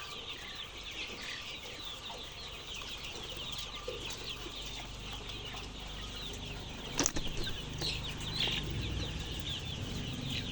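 Many young chicks cheeping together in a dense, continuous high chatter. A sharp knock comes about seven seconds in.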